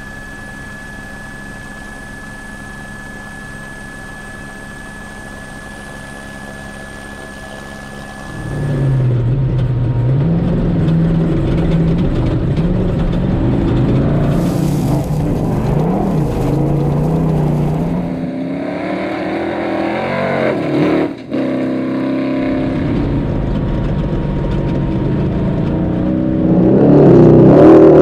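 V8 engine of a Dakar rally buggy, heard onboard. For about eight seconds it runs quietly and steadily with a thin high whine, then it opens up and runs louder, its pitch rising and falling as the revs climb and drop through the gears. There is a short lift-off about 21 seconds in, and it is at its loudest near the end.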